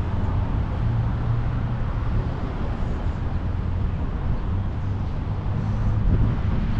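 Steady city street ambience: a constant low rumble of road traffic with no single passing vehicle standing out.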